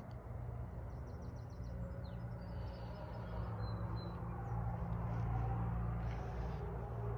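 Outdoor garden ambience: a steady low rumble that swells a little about five seconds in, with a few faint, high bird chirps in the first few seconds.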